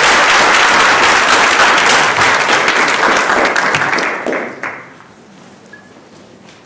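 Audience applauding in a lecture room, the clapping dying away about four and a half seconds in.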